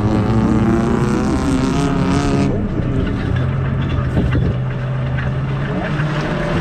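Folkrace car's engine running under racing load, heard from inside the stripped cabin. The revs rise and fall, and the hiss drops away about two and a half seconds in before the engine settles to a steadier note.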